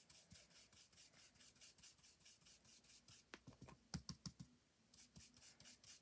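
Faint, quick brushing of a stencil brush flicking ink onto card through a stencil, about five light strokes a second, with a few slightly louder ticks a little past halfway and a short pause.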